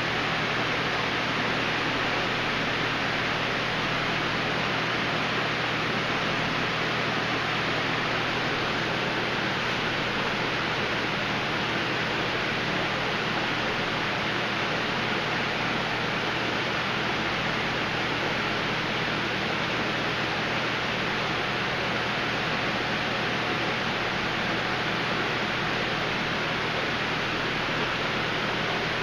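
Steady rushing of water from aquarium filtration, even and unbroken, over a low steady hum.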